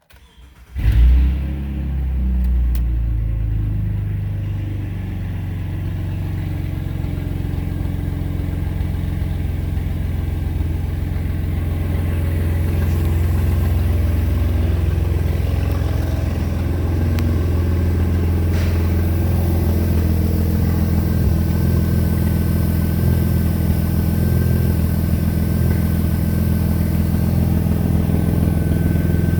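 2002 Jeep Liberty's 3.7-litre V6 engine starting about a second in, flaring as it catches, then idling steadily.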